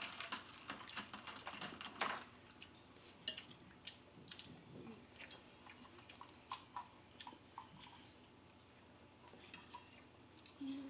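Chewing, with scattered small clicks of forks and spoons on plates, busiest in the first two seconds.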